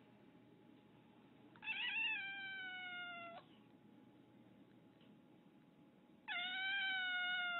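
Domestic cat giving two long, drawn-out meows, each sliding slowly down in pitch. The first starts about a second and a half in with a brief waver; the second starts about six seconds in.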